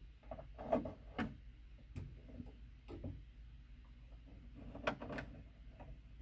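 Faint handling sounds of a plastic electrical box held against drywall while its outline is traced in pencil: a few scattered light clicks and taps, with faint scratching between them.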